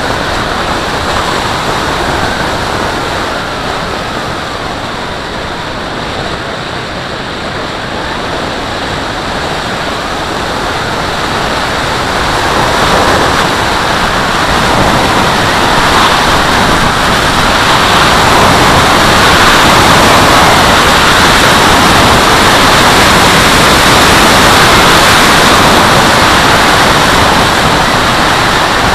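Air rushing over the microphone of a wing-mounted onboard camera on a 4.5 m Valenta Salto H101 RC glider in flight: a steady, loud wind noise with no motor, growing louder in the second half.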